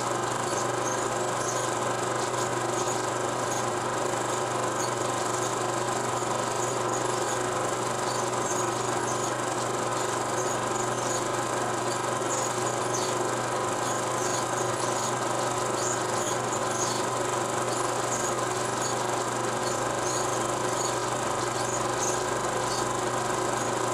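Steady hum and hiss with faint, scattered crackling ticks and no speech or music: the background noise of an old silent 16 mm film transfer.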